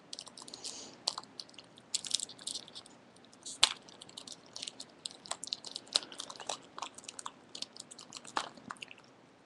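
Trading card packaging crinkling and rustling as it is torn open and handled, a steady run of irregular crackles and small clicks.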